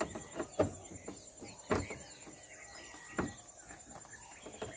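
Evening insect chorus, a steady high buzz, with faint bird chirps and several irregular knocks or snaps.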